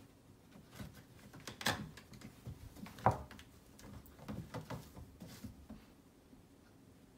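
Two cats scuffling on a cat tower: irregular light knocks and scratching of claws gripping the rope-wrapped posts and frame, with two sharper knocks about one and a half and three seconds in.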